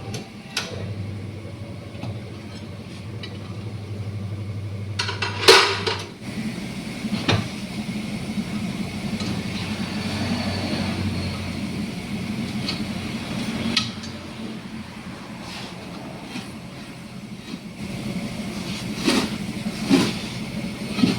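Tyre-changing machine working a tyre off its wheel rim: a motor hum for the first few seconds, then scattered metal clanks and clinks of the tools and rim, the loudest about five seconds in.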